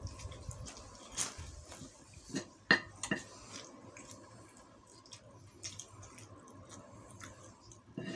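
Metal spoon and fork clicking and scraping on a paper-lined plate as leftover rice is gathered up, with a few sharp clicks in the first few seconds and quiet chewing between.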